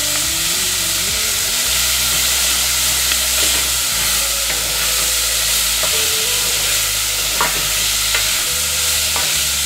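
Chopped bacon sizzling as it fries in a stainless steel pot, rendering its fat while it browns. A wooden spatula stirs and scrapes it, with a few sharper knocks against the pot in the second half.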